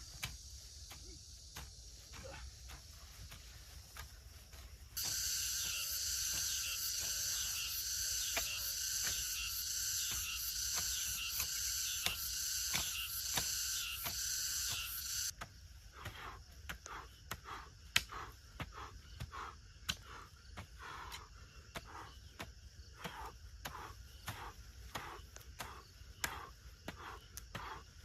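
A narrow-bladed hoe chopping into weedy soil over and over, breaking ground to clear it. A loud insect chorus buzzes for about ten seconds in the middle, starting and stopping abruptly.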